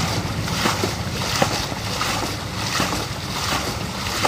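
Water splashing over and over, in strokes a little under a second apart, over a steady rushing noise.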